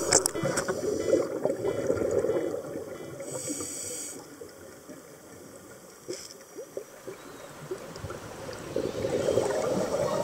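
Underwater sound heard through a dive camera: gurgling, bubbling water with scattered small clicks. It is louder over the first few seconds, drops quieter in the middle, and rises again near the end.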